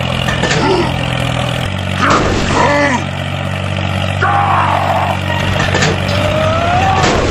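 Steady low engine drone of a toy tractor pulling a disc harrow, stepping down slightly in pitch about two seconds in. Short voice-like cries that rise and fall in pitch come over it several times.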